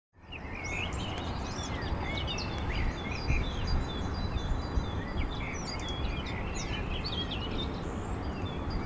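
Many small birds chirping and calling over a steady low rumble of outdoor background noise, fading in just after the start.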